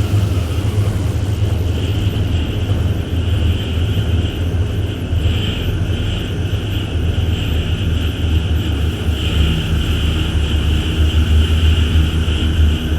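Ritual-industrial dark ambient drone: a dense, steady low hum with a hissing high band that swells and fades in slow waves.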